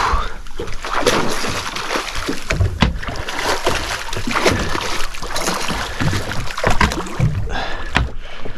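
Hooked fish thrashing and splashing at the surface beside a small boat, with water slapping against the hull in irregular splashes and knocks.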